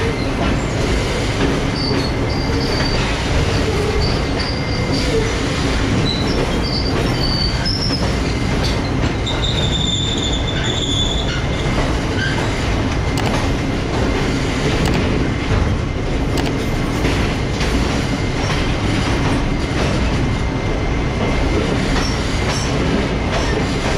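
Passenger train running along the track, heard from an open coach doorway: a steady rumble and rush of wheels on rails. Thin high wheel squeals come in briefly in the first few seconds and again about ten seconds in.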